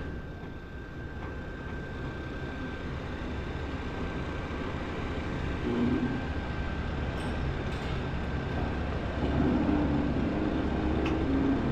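Diesel engine of the equipment lifting a disc carrier onto a trailer, running steadily and getting louder over the last few seconds as it works, with a faint steady high whine.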